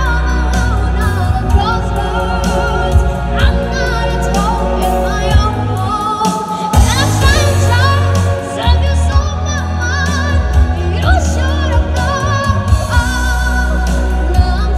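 A boy singing with a strong voice and wide vibrato into a handheld microphone, amplified over backing music with a heavy bass and a steady beat.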